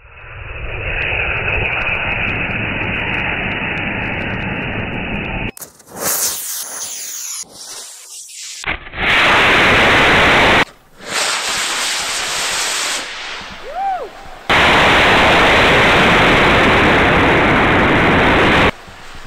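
Three model rocket motors igniting and burning with a steady rushing roar at liftoff. After abrupt cuts, loud, distorted rushing air noise on the rocket's onboard camera as it climbs and tips over.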